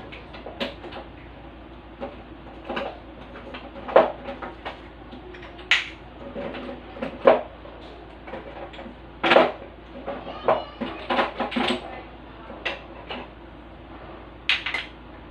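Irregular knocks and clatter of kitchen items being handled and set down on a counter, with the loudest knocks about four, seven and nine seconds in and a quicker run of small clicks shortly after.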